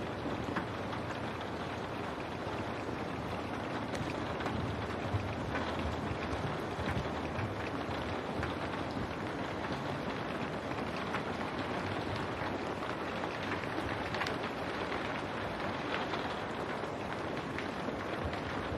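Steady rain on window glass: an even hiss with scattered sharper drop ticks.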